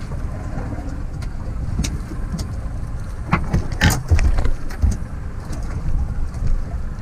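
Fishing boat underway at sea: a steady low rumble of engine and wind buffeting the mounted camera, with scattered light clicks and a louder clatter about halfway through.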